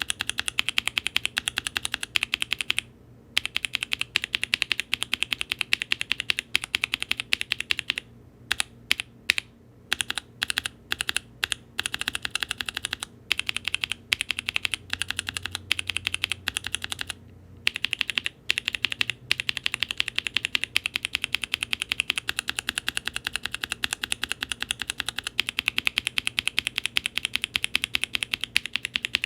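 Fast, continuous typing on a Mode Eighty mechanical keyboard with NK Blueberry tactile switches, an aluminum plate and GMK keycaps: a dense stream of sharp keystroke clacks with a few brief pauses.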